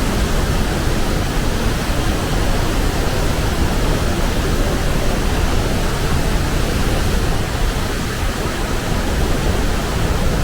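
Steady, loud rush of water from Athabasca Falls, a large waterfall on a glacial river.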